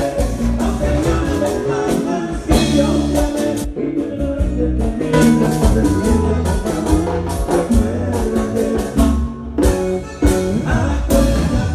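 Vallenato band playing live through a large PA, with a steady beat and some singing.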